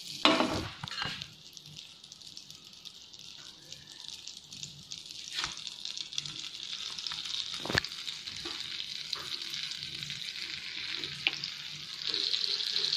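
Butter sizzling softly as it melts in a nonstick frying pan on a low flame, with a few sharp clicks and taps. The sizzle grows louder near the end, when bread pizzas sit in the hot butter.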